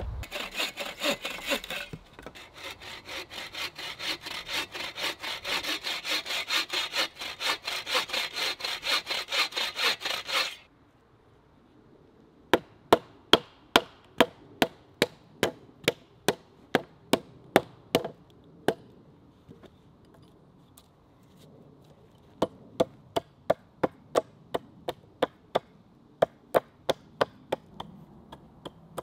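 Hand saw cutting through a wooden pole on a sawhorse in fast, even strokes, stopping abruptly about ten seconds in. After a short pause a hatchet strikes the pole in two runs of sharp, quick chops, a couple each second.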